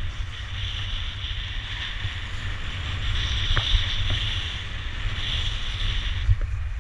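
Wind buffeting the action camera's microphone as a low, fluttering rumble, over the steady hiss of skis sliding across packed, groomed snow during a fast descent.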